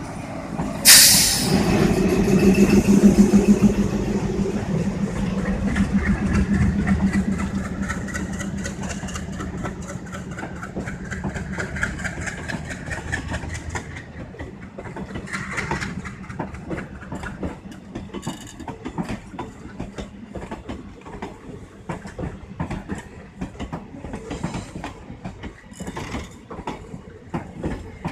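A diesel locomotive passes close by with a sudden loud rush of noise about a second in and a steady engine drone that fades away, then passenger coaches roll past, their wheels clicking over the rail joints as the train runs into the station.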